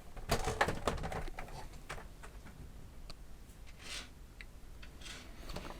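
Plastic computer case parts being handled and fitted together: a quick run of clicks and knocks in the first second or so, then scattered light taps and ticks.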